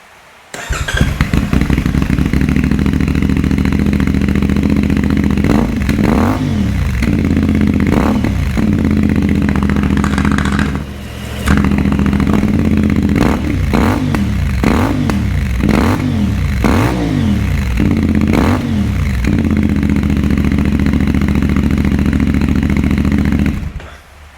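CFMoto 450MT parallel-twin motorcycle engine fitted with a Fire Torch slip-on muffler, baffle still in, started up and idling, blipped a couple of times, then given a run of quick throttle revs before being switched off near the end. The sound drops out briefly about eleven seconds in, then returns.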